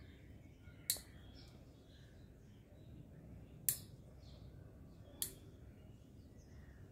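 Three sharp, short clicks, about a second in, near the middle and about five seconds in, over low steady background noise.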